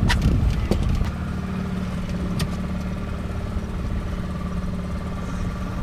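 Fishing boat's engine running steadily with an even hum, with a couple of sharp knocks in the first second.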